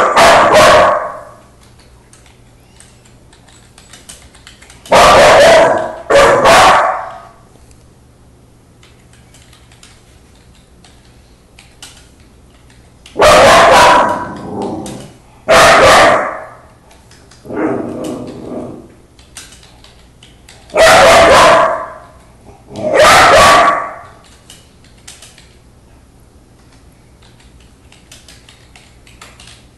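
A puppy barking: single loud barks spaced a few seconds apart, about eight in all, one of them lower and softer, barking at an older deaf dog to get its attention.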